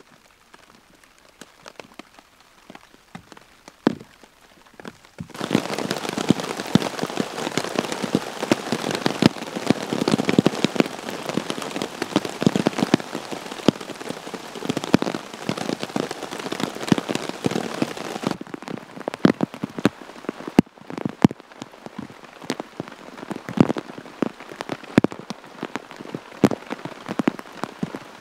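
Rain falling: sparse drops at first, then a sudden dense downpour from about five seconds in, easing to a thinner patter with scattered heavy drops from about eighteen seconds in.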